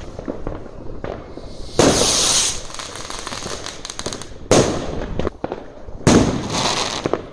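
Fireworks going off: three loud bangs of bursting shells about two seconds, four and a half seconds and six seconds in, each with a crackling tail, and scattered smaller pops between them.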